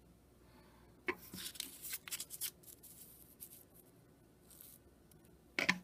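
A paper template and thin wood blanks being handled and slid on a tabletop: faint rustling and light taps starting about a second in, then a short, sharper knock near the end.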